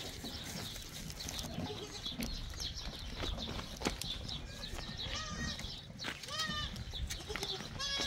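A goat bleating: three short, wavering bleats in the second half.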